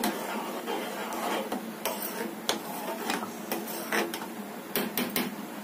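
A metal spoon stirring chai boiling in an aluminium saucepan, scraping and clicking irregularly against the pan over a steady hiss.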